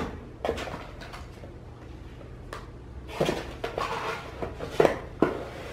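Cardboard box being unpacked by hand: scattered knocks and rustles as the box flaps and the items inside are handled, busier about three seconds in.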